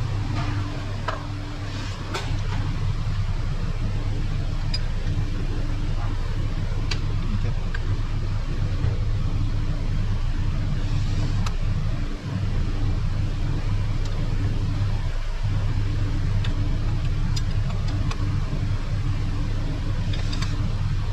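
Steady low machine hum with a few faint light clicks on top, dipping briefly twice partway through.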